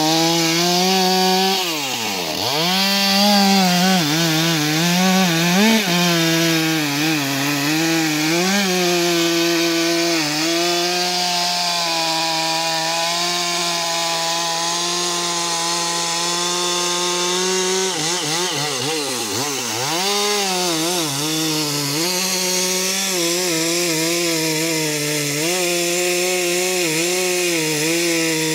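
Stihl MS 462 two-stroke chainsaw cutting through a thick walnut trunk, running under load at a steady pitch. About two seconds in, and again several times around eighteen to twenty seconds in, the revs drop sharply and climb back.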